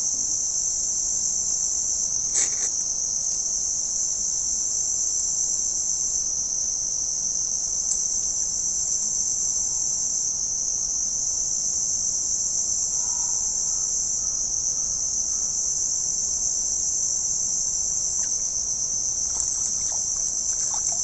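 A steady, high-pitched chorus of insects, unbroken throughout, with one brief click about two seconds in.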